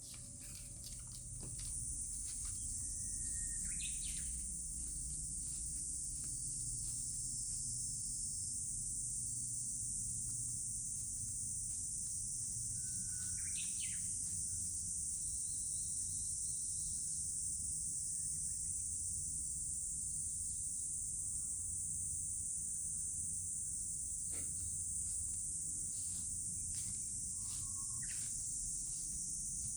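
Steady high-pitched insect drone, with a few short bird chirps now and then over a low background rumble.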